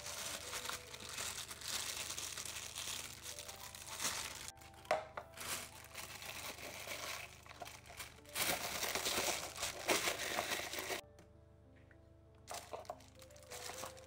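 Clear plastic disposable piping bag crinkling as it is handled, opened and pushed down into a plastic cup, in two long spells. Soft background music plays under it, and the crinkling stops near the end, leaving a few short soft sounds.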